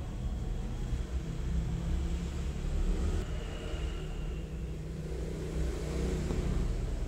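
A steady low rumble of background noise, with no clear sound from the work itself.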